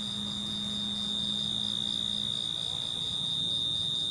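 Cricket singing from the mouth of its burrow: a steady, unbroken high-pitched trill. A low steady hum sounds beneath it until about two seconds in.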